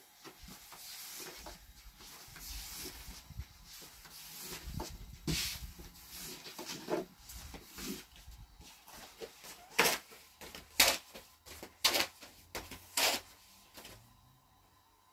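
Sharp knocks and taps of bread-making, a wooden rolling pin and board handled while dough balls are worked on a floury cloth, with soft rustling between; the loudest four knocks come about a second apart in the second half.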